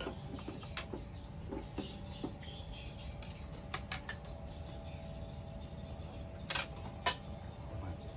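Scattered light clicks and taps of chopsticks and bowls being handled at a meal, with two sharper clinks about six and a half and seven seconds in, over a steady low hum.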